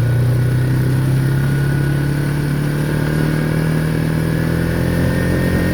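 Vehicle engine running steadily under way, its pitch rising slowly as it picks up speed.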